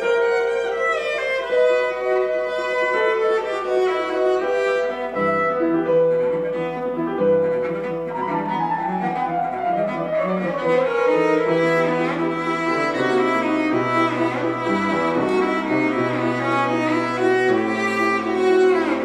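Cello and grand piano playing classical music together. The cello holds long high notes at first, then a falling line runs down about eight seconds in, over lower notes beneath.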